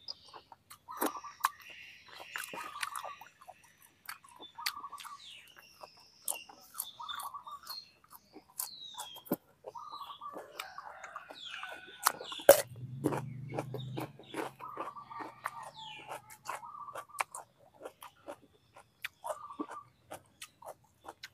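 Close-miked chewing of braised pig intestines: wet smacking and clicking mouth sounds as pieces are bitten and chewed, with a loud click about twelve seconds in followed by a low hum for a couple of seconds. Birds chirp faintly in the background.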